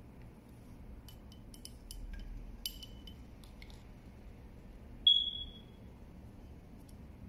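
Light metallic clicks and taps as a Mitutoyo 500-171-30 steel digital caliper's jaws are fitted against a metal tube. About five seconds in, one sharp, high metallic ping rings briefly and fades; it is the loudest sound.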